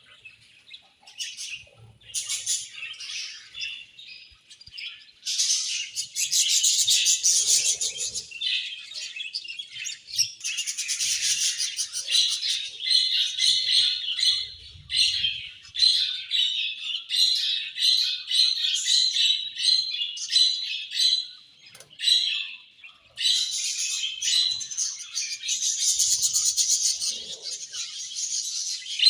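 Several budgerigars chirping and warbling together, a dense run of quick high chirps that starts and stops, with short lulls near the start and about three quarters of the way through.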